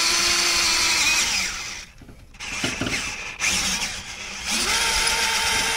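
Power drill boring a hole in a Sterling 10.5 differential housing, for the e-locker's wire. It runs steadily, stops a little under two seconds in, a few light knocks follow, and near the end it spins up again.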